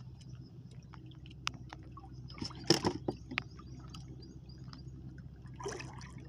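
Water sloshing against a small wooden outrigger boat, with small clicks from handling a hand fishing line and a steady low hum underneath. A brief louder swish comes a little under three seconds in.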